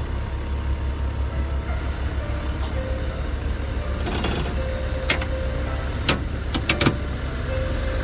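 A vehicle engine idling with a steady low rumble, with a few sharp knocks between about four and seven seconds in.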